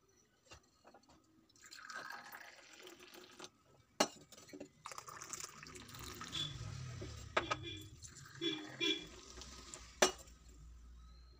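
Hot masala tea poured in a stream from a height into a steel pot, splashing and frothing. Near the end it is poured into a glass cup. A couple of sharp knocks come between the pours.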